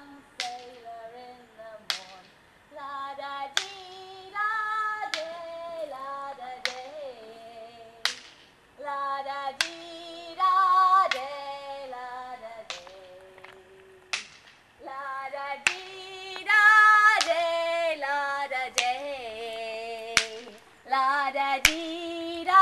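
A woman singing unaccompanied, a melody of held notes with vibrato, broken up by sharp percussive strikes every second or two.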